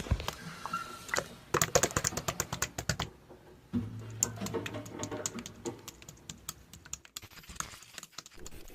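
Slime being squeezed and pressed by hand, giving dense runs of small sticky clicks and pops. A low steady hum sounds for a couple of seconds in the middle.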